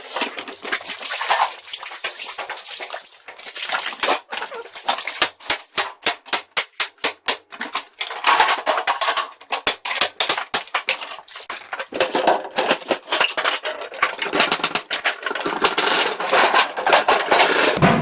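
Metal clicking and clanking, like tools and hardware being worked on a safe, with a fast run of regular knocks at about three a second in the middle stretch and busier clattering later.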